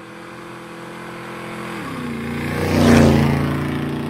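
An engine passing by, added as a sound effect to a logo intro: it swells to a loud peak about three seconds in and then fades, its pitch stepping down twice along the way.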